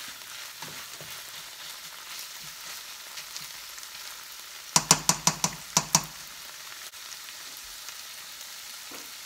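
Ground chicken, onion and carrots sizzling in a nonstick frying pan while being stirred with a slotted spatula. About five seconds in comes a quick run of about eight sharp knocks, the spatula knocking against the pan, lasting about a second.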